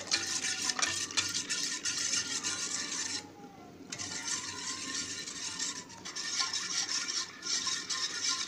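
Gram flour and curd batter being beaten in a steel pot, the utensil scraping and clicking against the metal, with a brief pause a little past three seconds in.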